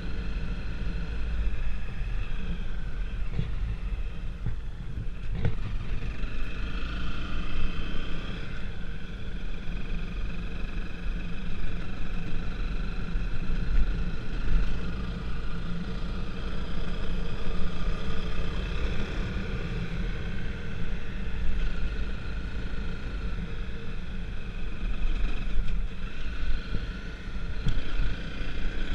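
A vehicle running steadily under way, with a deep rumble and a higher whine whose pitch wavers a little.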